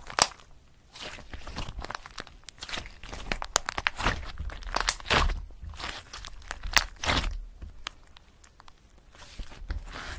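Pen scratching across paper in irregular bursts of short strokes: handwriting out song lyrics.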